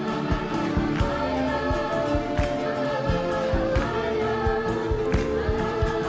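A choir singing over music with a steady drum beat, holding one long note from about four seconds in.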